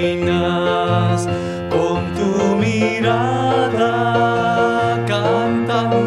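Church hymn sung with sustained instrumental accompaniment, with long held notes over a steady bass: the entrance hymn at the start of Mass.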